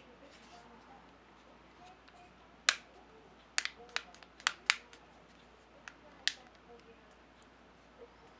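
About eight sharp plastic clicks and taps from a Samsung Galaxy S2 being handled, fingers pressing on its thin snap-on back cover. The clicks are bunched in the middle, the first one the loudest.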